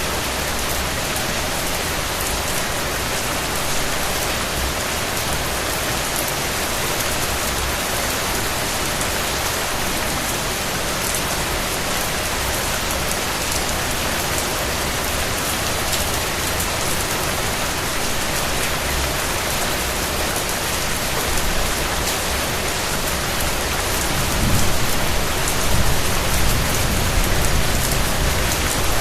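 Steady rain falling, an even hiss of drops. A low rumble swells in during the last few seconds.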